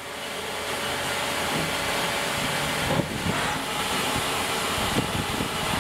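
CNC turning center running: a steady machine hiss and hum with a few faint clicks, as the turret brings the punch used as a firing pin in toward a blank's primer.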